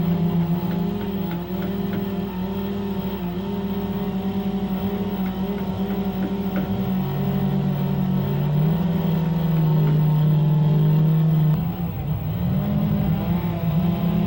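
Chainsaw running at high revs, its pitch dropping for several seconds in the middle as it bogs down under load in the cut, then rising again.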